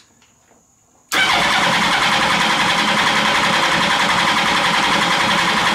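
Suzuki Hayabusa 1300cc four-cylinder engine turned over on its electric starter with the throttle wide open, for a compression test on cylinder four. The gauge reads slightly above 180 psi, on the low side of the 174–232 psi standard. The steady, evenly pulsing cranking starts abruptly about a second in and runs for nearly five seconds.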